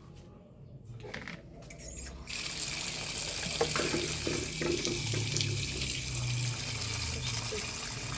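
Water running from a tap, starting about two seconds in and going on steadily, as freshly picked mulberries are rinsed under it.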